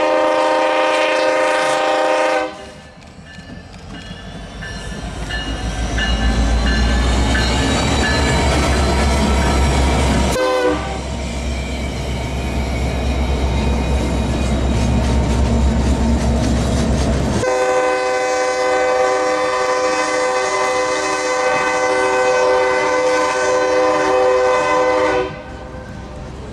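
Freight train passing: a diesel locomotive's multi-note air horn sounds a chord for about two seconds at the start, then the locomotives' low engine rumble builds as they roll by, and the horn sounds again, held for about eight seconds, stopping shortly before the end.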